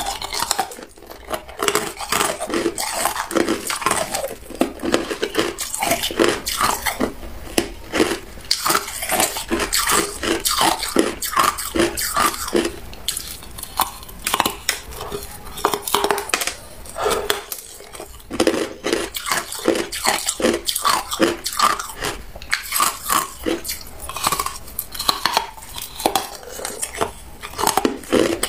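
Crushed hard ice being bitten and chewed: a dense, irregular run of sharp crunching cracks, with a short lull about two-thirds of the way in.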